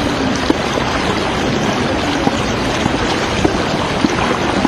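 Floodwater of the swollen Thamirabarani river rushing past, a steady loud wash of flowing water.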